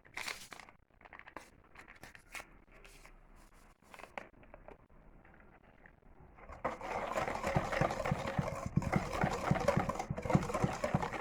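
Electric hand mixer with whisk beaters beating cake batter in a bowl, switched on about six seconds in and stopped just before the end. Before it starts there are only faint small clicks and rustles.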